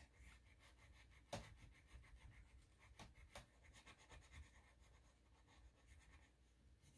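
Faint pencil strokes scratching on paper, back and forth, as an area is shaded dark, with one sharper tick a little over a second in.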